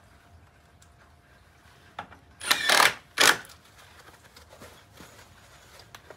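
Cordless driver running in two short bursts, about half a second and then a quick blip, a little past halfway, sinking short SD structural screws through a steel bracket into wood; a click comes just before.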